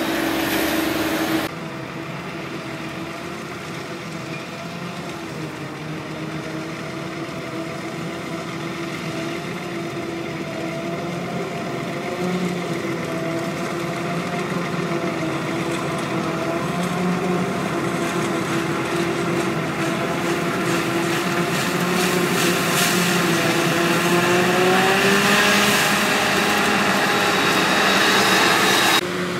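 Claas Jaguar 980 self-propelled forage harvester running under load as it chops standing corn for silage. Its steady engine and cutterhead hum grows steadily louder as the machine comes closer.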